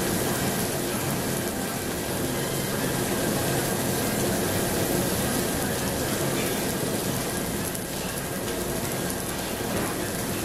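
Pork belly and pork neck sizzling on a tabletop barbecue grill: a steady hiss, with a faint steady hum underneath.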